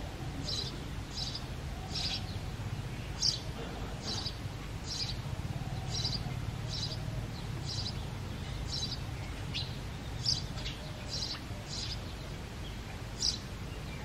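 Male house sparrow chirping at its nest hole, short high chirps repeated about twice a second, the steady calling of a breeding male.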